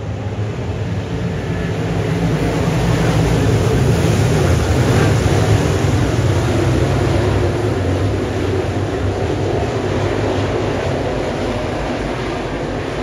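Dirt late model race cars with 604 crate small-block V8 engines running on the track. The engine noise swells to its loudest about four to six seconds in, then eases off.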